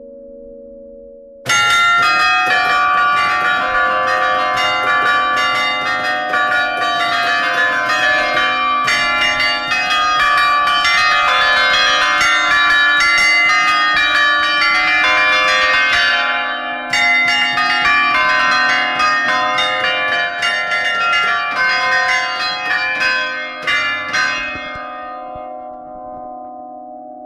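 Church bells pealing: many bells struck in quick succession, their ringing overlapping. The peal sets in suddenly about a second and a half in, breaks off briefly past the middle, then thins out and dies away near the end, leaving a lingering low hum from the bells.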